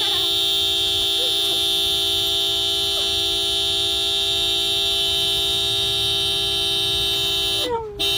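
A long, steady, horn-like tone held at one pitch, with a brief dip and downward slide near the end before it resumes.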